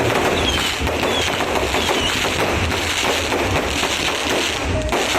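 Fireworks going off: a dense, continuous crackle of many small pops. A few short falling whistles sound in the first two seconds.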